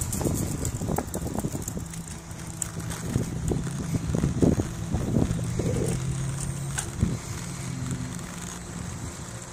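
Bicycle riding on a paved path: wind buffeting the microphone over the rumble of the tyres, with a steady low hum through the middle and a few sharp knocks from bumps.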